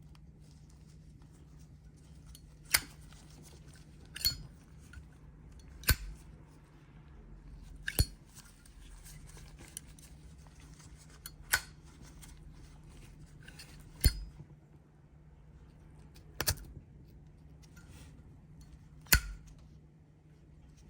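Zippo windproof lighter's hinged metal lid clicking, about eight sharp metallic clicks spaced two to three seconds apart, a few of them doubled.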